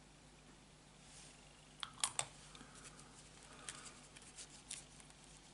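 Small plastic clicks and light scraping as a hand tool works over a plastic model cockpit tub to clear off leftover poster putty: three sharp clicks about two seconds in, then softer scattered ticks and rustling.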